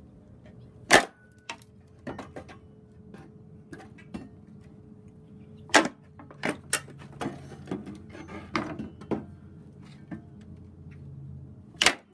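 Wooden pallet boards being pried loose with a homemade steel pry tool made of rail spikes and angle iron: three loud, sharp knocks of wood and metal, about a second in, near the middle and near the end, with lighter clicks and knocks between.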